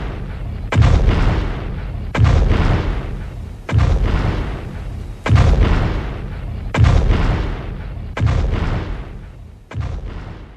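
A monster sound effect made of heavy booming impacts, seven in all, one about every second and a half. Each boom is deep and fades out slowly in a rumble before the next one lands.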